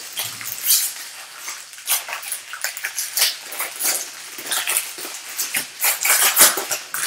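Foil wrapper of a Bowman Draft Super Jumbo trading-card pack crinkling and tearing as it is ripped open by hand: a rapid, irregular run of crisp crackles.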